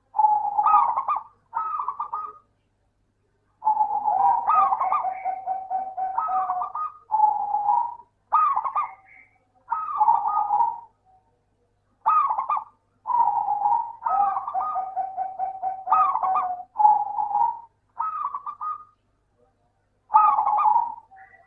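Zebra dove (perkutut) singing its cooing song, phrase after phrase, each about a second long, made of quick stuttering notes and separated by short pauses.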